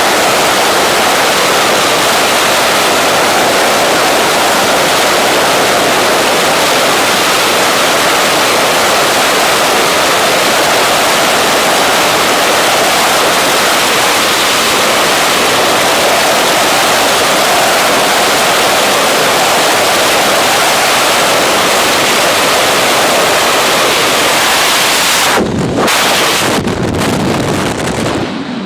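Loud, steady rush of freefall wind blasting over a skydiver's camera microphone. About 25 seconds in it breaks up, cutting in and out, and drops off.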